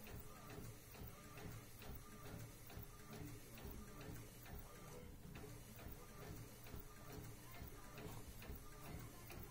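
Desktop pouch laminator's rollers drawing a sheet through, a faint steady motor hum with regular ticking from the roller drive.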